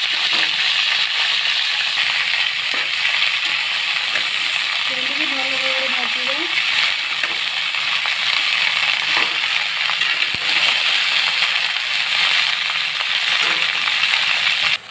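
Cut okra sizzling steadily in hot mustard oil in an aluminium kadai, stirred with a spatula, with a few light clicks of the spatula against the pan.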